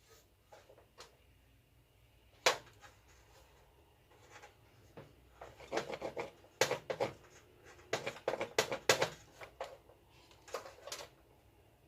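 Clicks and scratchy scrapes of hand work with thin wire and small tools at a repair bench, in irregular bunches: one sharp click about two and a half seconds in, a busy run of clicks and scrapes from about five to nine seconds, and a few more near the end.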